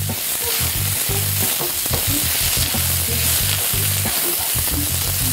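Zucchini flowers, julienned peppers and carrots sizzling steadily as they stir-fry over high heat in peanut oil in a wok, kept moving around in the pan.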